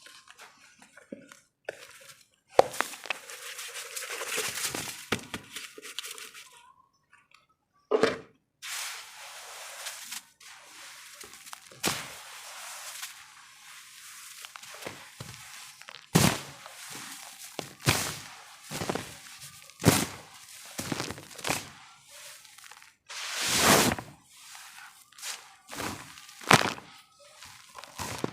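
Crumbly lumps of red dirt being broken up: a stretch of gritty crumbling hiss, then a run of sharp crunches and cracks about a second or two apart, with softer crumbling between them.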